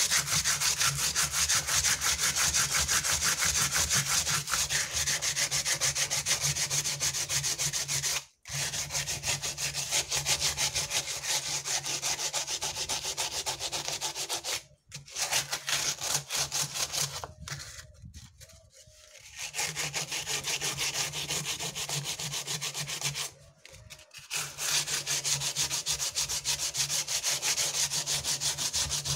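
Sandpaper rubbed by hand over dried cement studded with seed beads, in quick back-and-forth strokes, with a few short pauses. The dried cement is being sanded to bring the embedded beads to the surface.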